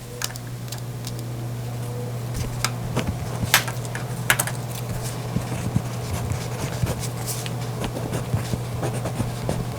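Pentel AM13 mechanical pencil with thick 1.3 mm lead scratching across paper in short, irregular strokes, with a few sharper clicks, over a steady low hum.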